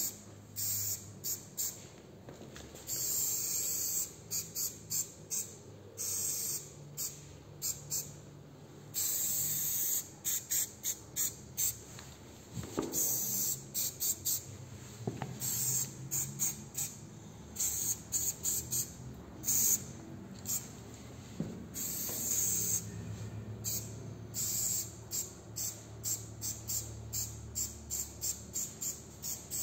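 Graffiti letters being laid down in quick strokes: short hissing scratches, several a second, with a few longer strokes of about a second.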